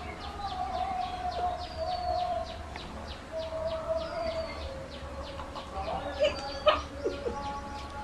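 A bird chirping in the background: a quick, even run of short high chirps, about four or five a second, broken by a few falling whistled notes.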